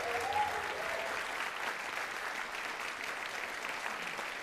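Audience applauding in a concert hall: a dense, steady patter of clapping. A brief pitched call rises over it in the first second.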